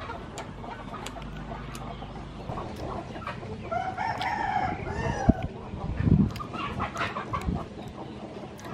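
A rooster crows once near the middle, a single drawn-out call of about a second and a half, with scattered sharp clicks and a couple of dull thumps around it.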